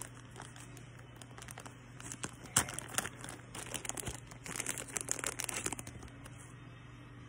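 Clear plastic packaging bag crinkling as it is handled and a small remote control is pulled out of it: irregular crackles, loudest about two and a half seconds in.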